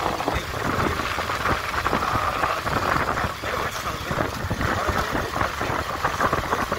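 A vehicle's engine running as it drives along, under a steady rushing noise.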